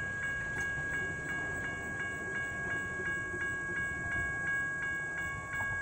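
Railroad grade-crossing warning bell ringing at about three strokes a second while the gate arms lift after the train has cleared, stopping near the end.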